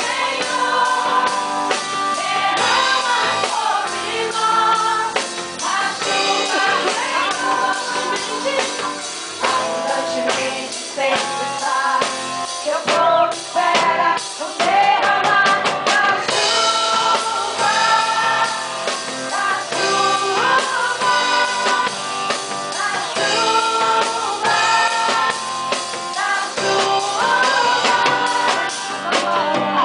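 Gospel worship music: voices singing over instrumental accompaniment with drums.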